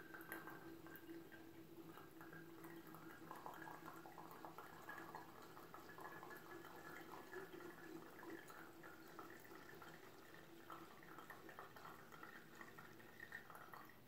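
Presto MyJo single-cup coffee maker with hot water pressed slowly by hand through a K-cup: a faint, irregular trickle of coffee coming through into the cup.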